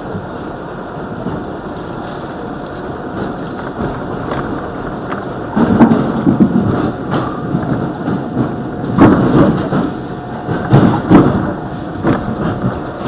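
R62A subway car running through a tunnel, heard from inside the rear car: a steady rumble of wheels on rail that grows louder about five and a half seconds in, with irregular knocks and clatter from the wheels on the track.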